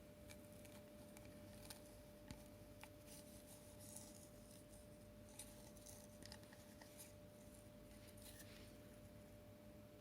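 Near silence: room tone with a faint steady hum and a few faint scattered ticks and soft rustles.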